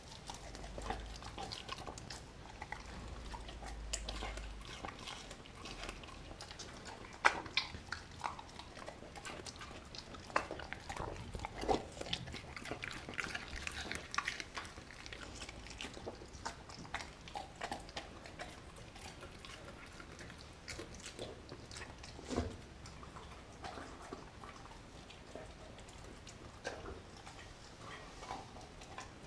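A German Shepherd–Chow Chow mix dog chewing and crunching chunks of raw meat from a glass bowl, with many small wet bites and clicks. There is a sharp knock about seven seconds in and another a little after twenty seconds.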